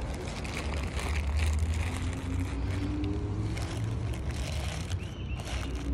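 Wind buffeting a phone's microphone: a steady low rumble with faint handling knocks.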